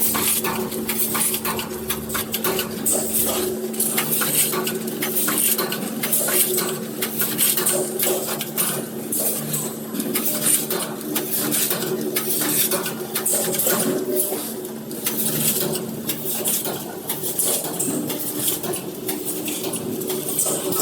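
Automatic bag-in-bag food packing machine running: rapid, irregular clicking and clattering of its moving parts over a steady motor hum.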